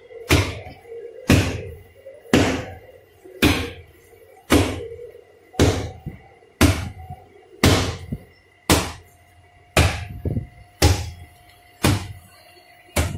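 Maida dough being pounded on a hard surface during kneading: a heavy thud roughly once a second, about thirteen times in a steady rhythm.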